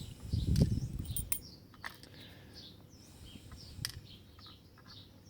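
Small metal padlock parts clicking and clinking as they are handled on a bench, with a dull bump near the start. A small bird chirps over and over in the background.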